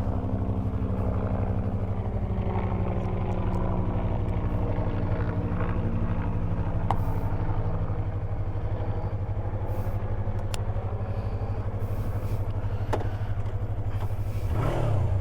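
Yamaha R3 motorcycle's 321 cc parallel-twin engine running steadily, with a strong low rumble.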